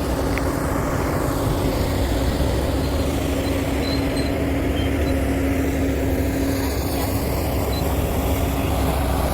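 Diesel engine of heavy earthmoving machinery running steadily: a constant low rumble with an even hum throughout.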